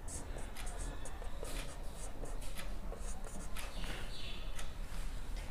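Marker pen writing on a whiteboard: a run of short, irregular scratchy strokes, with a brief squeak about four seconds in.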